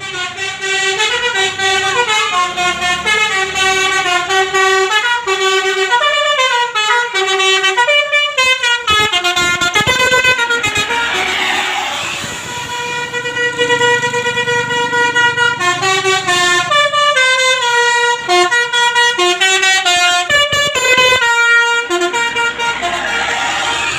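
Basuri telolet multi-trumpet horn playing a fast tune, several horn tones sounding together in chords and stepping from note to note. About ten seconds in, the tune breaks off briefly under a rush of noise, then starts again.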